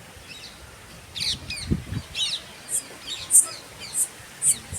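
Small birds chirping: quick high chirps and short falling notes, then a sharp high call repeated a little less than twice a second through the second half.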